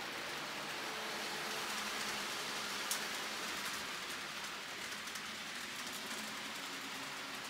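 N gauge model train running on the layout's track: a steady rushing hiss of wheels and motor, with one sharp click about three seconds in.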